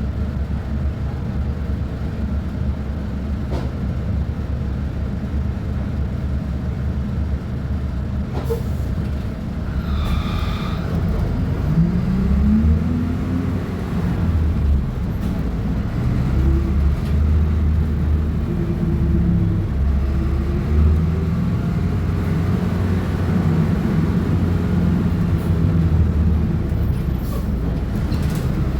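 Diesel engine of a Volksbus 15.190 OD bus running steadily at low speed, then from about twelve seconds in revving up and running louder, its pitch climbing and dropping several times as the bus accelerates. A brief high-pitched sound comes about ten seconds in.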